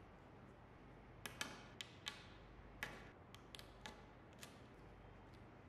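Craft knife cutting through black corrugated plastic tubing: about a dozen irregular sharp clicks and crackles as the blade snaps through the plastic ribs, starting about a second in, over a near-silent background.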